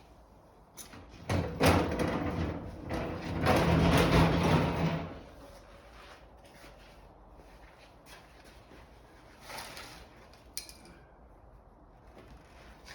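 A car seat being handled and moved into place in the car: a few seconds of bumping, scraping and rustling with several knocks, then quiet with a short rustle and a single sharp click.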